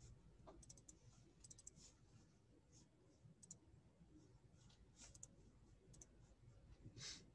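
Near silence with faint, scattered clicks of a computer mouse, some in quick little runs.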